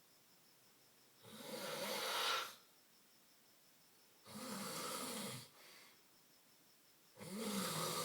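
A man snoring loudly: three snores of about a second each, roughly three seconds apart, with quiet between them.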